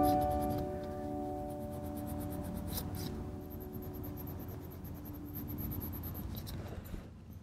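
Coloured pencil scratching across paper in shading strokes, under a sustained chord of background music that rings out and slowly fades.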